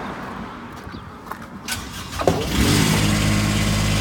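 The bucket truck's small auxiliary pony motor is cranked and catches about two seconds in, rising briefly and then settling into a steady idle.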